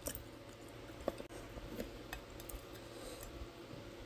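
A few faint clicks and small taps of food being handled and eaten by hand over a plate, the sharpest about a second in.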